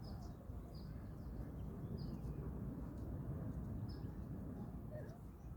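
A small bird giving short, high chirps about every second or two, four in all, over a steady low outdoor rumble.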